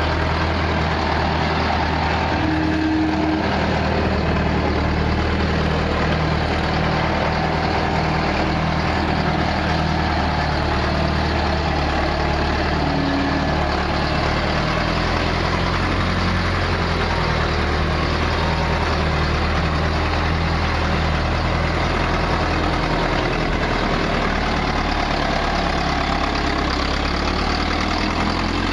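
Case 780 backhoe loader's diesel engine running steadily, with a low, even engine note throughout and a slight change in the note about three quarters of the way through.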